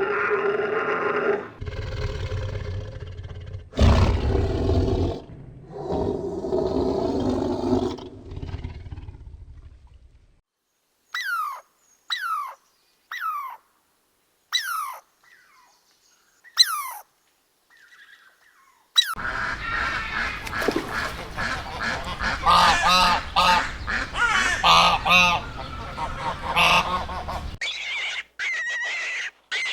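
A string of different animal calls: loud drawn-out calls for the first ten seconds, then about eight short whistles that fall sharply in pitch, then a dense stretch of many birds calling and honking at once, with a few higher calls near the end.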